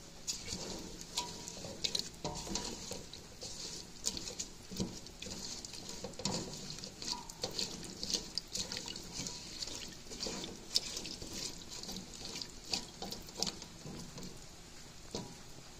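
A spoon stirring chopped vegetables and liquid in an enamel pot: irregular clicks and scrapes of the spoon against the pot, with sloshing liquid.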